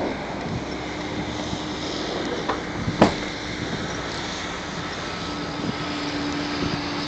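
Steady road and engine noise heard from inside a car driving slowly, with a faint steady hum and a single sharp click about three seconds in.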